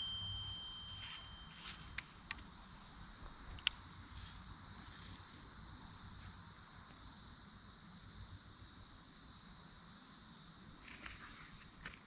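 A few sharp, faint clicks in the first four seconds, the loudest about three and a half seconds in, over a steady high hiss.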